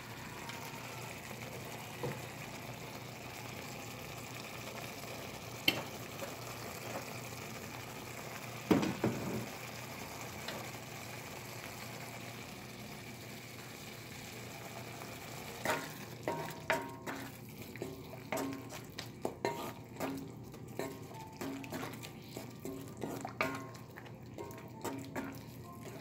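Tomato sauce simmering and reducing in a cast-iron skillet, with a steady sizzle and bubbling. There are a few single knocks in the first ten seconds. Over the last ten seconds a spoon stirs the thickened sauce, scraping and tapping against the pan in quick irregular clicks.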